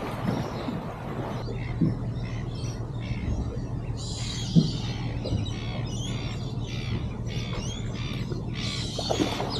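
Many birds squawking and calling over and over, beginning a second or so in, above a steady low hum. Two sharp knocks stand out, the louder one about four and a half seconds in.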